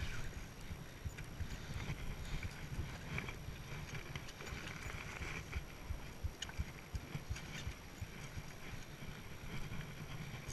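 Wind buffeting the microphone in uneven gusts, over a hiss of water washing against the rocks, with scattered light clicks.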